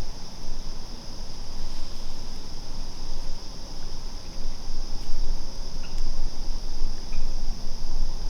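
Steady, high-pitched chorus of insects singing in the dark, over a low, uneven rumble.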